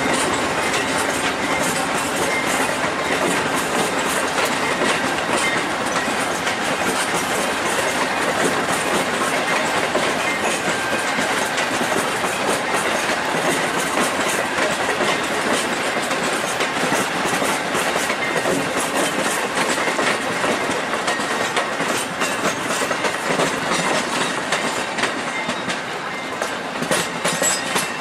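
Amfleet passenger cars rolling past on departure, their wheels clattering over rail joints and switches in a steady clickety-clack. The sound thins a little near the end as the last car goes by.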